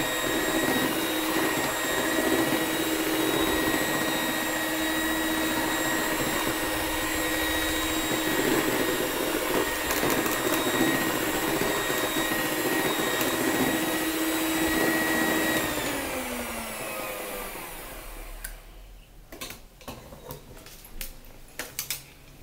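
Electric hand mixer running steadily with its beaters in a pot, a constant motor whine. About 16 seconds in it is switched off and the whine falls in pitch as the motor spins down, followed by a few light clicks and knocks as it is handled.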